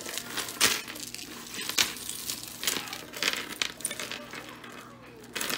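Costume jewelry clinking as pieces are handled and pulled from a pile: a run of sharp metal-and-bead clinks at irregular intervals.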